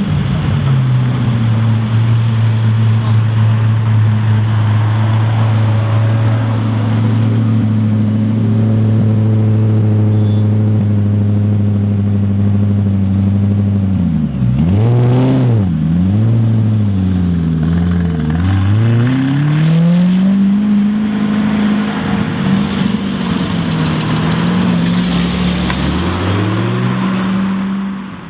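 Koenigsegg CC8S's supercharged V8 running at a steady, raised idle for about the first half, then revved up and down several times, with a few more rev blips near the end.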